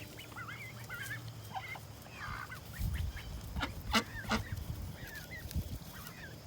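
Ducklings peeping in small wavering chirps, mixed with soft calls from adult ducks, and a few short sharp calls about four seconds in.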